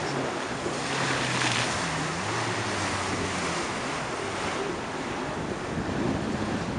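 Choppy surf breaking and wind buffeting the microphone, with the engine of a distant jet ski droning low, its pitch shifting up and down during the first few seconds.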